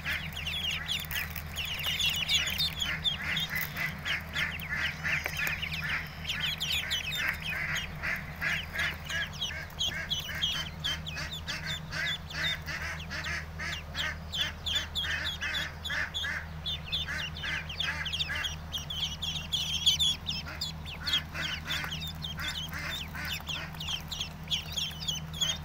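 A brood of domestic ducklings peeping together, many short high calls overlapping at several a second, thinning briefly now and then. A steady low hum runs underneath.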